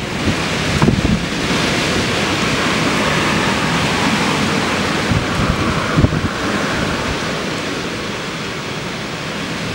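Strong storm wind rushing through tall trees, with gusts buffeting the microphone in low thumps. The rush swells in the first couple of seconds and eases a little toward the end.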